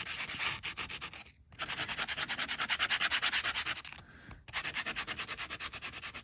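A nail buff rubbed in quick back-and-forth strokes over inked, embossed metal tape, sanding the alcohol ink off the raised design so the bare metal shows through. The scratchy rubbing stops briefly twice, about one and a half and four seconds in.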